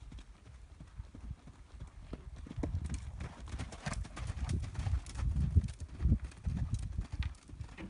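Hoofbeats of a warmblood gelding cantering on a sand arena: a rhythm of low, dull thuds that grows louder from about two and a half seconds in as the horse passes close by.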